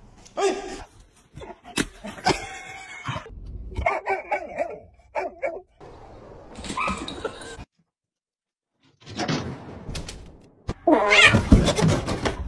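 Pet dogs and cats vocalising in a series of short, separate calls, broken by a second of silence about eight seconds in; the loudest call comes near the end.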